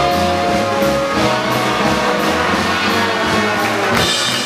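Circus band playing music, with long held notes in about the first second.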